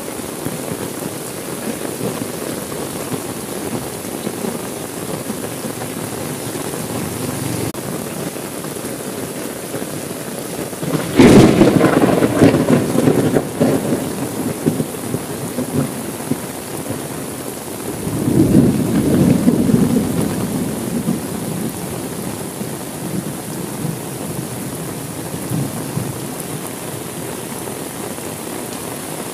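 Steady heavy rain with a sudden loud crack of thunder about a third of the way in, rumbling on for a few seconds, then a second, softer roll of thunder a few seconds later.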